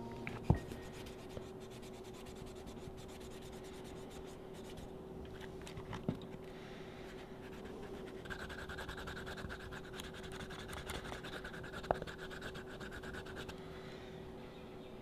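Faint scratching and scraping of hand tools and hands working the thick edge of a leather sheath, with a stretch of steadier rubbing in the second half. A few light knocks are heard, and a low steady hum runs underneath.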